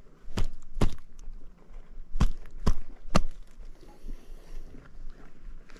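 Five short, sharp knocks close by: two in the first second, then three about half a second apart between two and three seconds in, with faint rustling between them.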